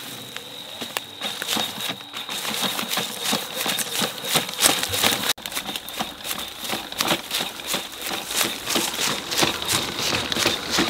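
A Ghost Robotics Vision 60 quadruped robot's feet stepping through dry woodland undergrowth, with a dense run of irregular crackles and snaps of twigs and stems. A steady high whine runs underneath. The sound drops out briefly about five seconds in.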